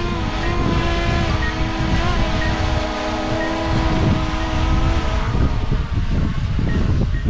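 DJI camera drone hovering close by, its propellers giving a steady multi-tone whine; its blades are damaged from a crash. The whine fades about five seconds in as the drone flies away, leaving wind noise on the microphone.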